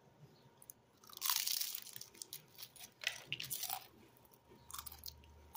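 A person biting into crunchy food and chewing it close to the microphone. There is a long crunch about a second in, then several shorter crunches later.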